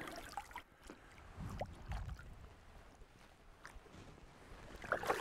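Faint splashing of water against a boat's hull as a hooked smallmouth bass thrashes at the surface beside it, with small knocks.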